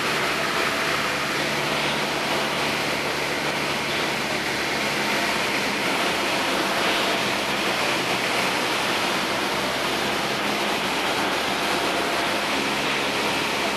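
Steady cockpit noise of a Piper Tomahawk light aircraft: an even rush of noise with the engine's faint steady drone underneath.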